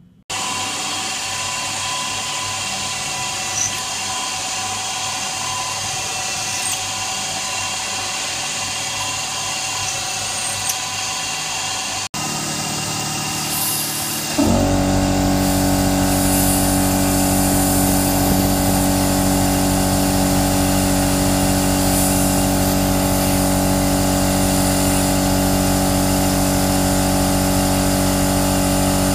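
CNC milling machine, a converted TM20LV (G0704-type) mill, cutting a pocket in billet aluminium with a 6 mm two-flute end mill: a steady spindle whine mixed with cutting noise. It breaks off sharply about 12 seconds in, and from about 14 seconds in it is louder, with a stronger steady hum.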